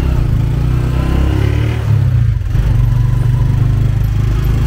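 Motorcycle engine of a tricycle (motorcycle with a sidecar cab) running on the move, heard from inside the sidecar as a steady low drone.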